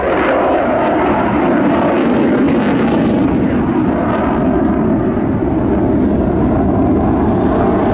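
RAF Eurofighter Typhoon FGR4's twin EJ200 turbofan engines, a steady jet noise as the fighter flies a display manoeuvre in afterburner.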